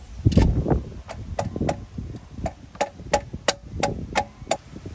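Hand socket ratchet clicking in short, evenly spaced strokes, about three a second, as a 12 mm thermostat-housing bolt is backed out. A few heavier metal knocks come near the start.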